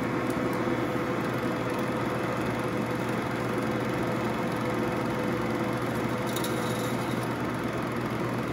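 BerkeyKeystone Dual-8 movie projector (model 1550Z) running steadily, its motor, fan and film-advance mechanism humming as film is threaded through the machine. A few faint ticks come about six seconds in.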